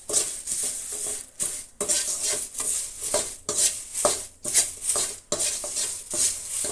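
Perforated steel spatula scraping and stirring curry leaves around a steel kadai in repeated strokes, with a light sizzle from the little oil they are roasting in.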